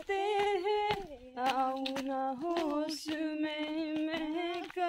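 A woman singing a melody in long, held notes, phrase after phrase with short breaks between them.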